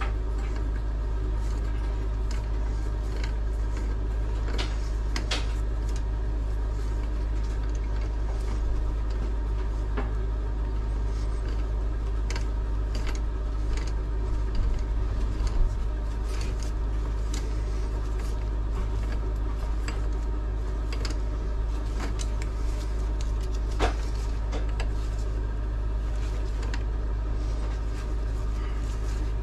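A steady machine hum with a deep low drone runs throughout. Over it come a few sharp light clicks and a short run of small knocks about halfway through, from tongue-and-groove pliers gripping and turning a brass fitting on a copper pipe.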